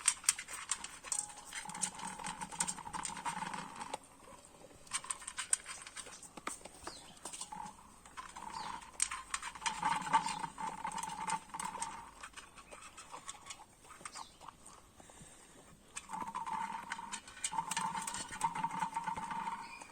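A dog eating and chewing its food, a rapid run of irregular crunching clicks and smacks. It comes in bouts separated by brief quieter pauses.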